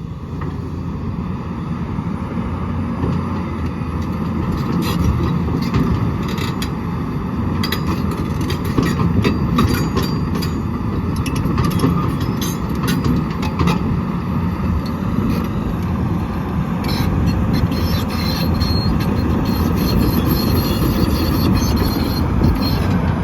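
Cummins diesel engine of an XCMG XE360U tracked excavator running steadily, with a string of sharp metallic clanks in the middle and a high squeal or whine in the last few seconds.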